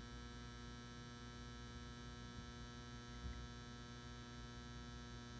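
Faint, steady electrical hum with a buzzy stack of overtones from the M59 metal halide ballast running a C.E.W. 360 W high pressure sodium retrofit bulb, with the lamp still warming up.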